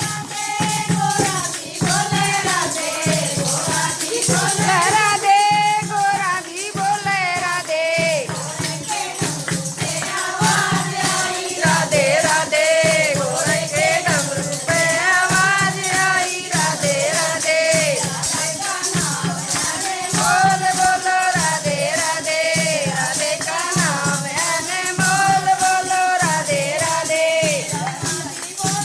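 Haryanvi bhajan: a singer carrying a wavering, ornamented devotional melody over a steady drum beat and continuous jingling, rattling hand percussion.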